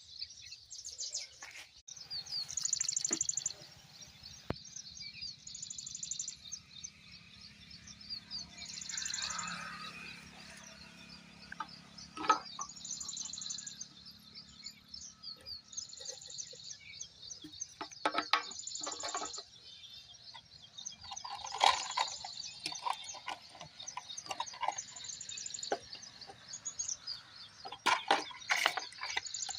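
A bird repeating a short, high trilled phrase about every three seconds, with a few scattered clicks and knocks and a faint low hum under the first half.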